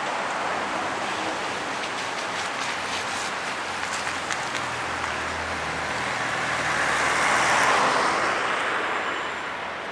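Steady road traffic noise, with one vehicle passing that swells and fades about three-quarters of the way through.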